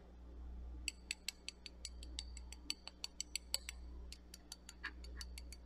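Metal spoon tapping on the hard caramelized sugar crust of a crème brûlée. It gives a quick, irregular run of crisp, sharp clicks that starts about a second in.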